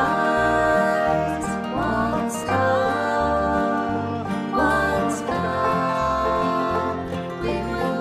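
A song with acoustic guitar and a stepping bass line, and a voice singing the chorus.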